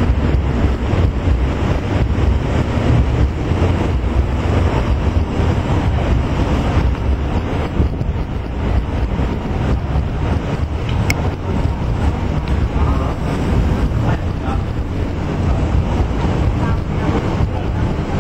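Wind buffeting the camera microphone on an open ship's deck: a steady, deep rush of noise.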